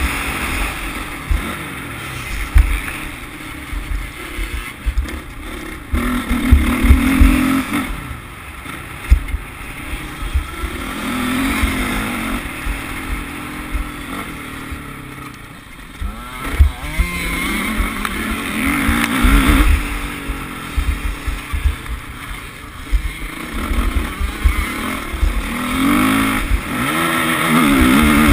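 Motocross bike's engine heard on board, revving up and falling back again and again as the rider accelerates and shifts around the track. Wind rumbles on the microphone and there are sharp knocks from the rough ground.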